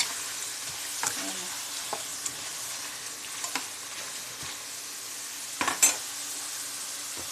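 Raw potato slices deep-frying in hot oil, a steady sizzle, broken by a few sharp knocks, the loudest about five and a half to six seconds in.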